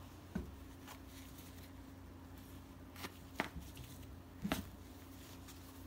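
A knife cutting through a skinned coyote's foreleg just above the elbow, giving a few short clicks and snaps spread over several seconds, the sharpest about halfway through. A faint steady low hum lies underneath.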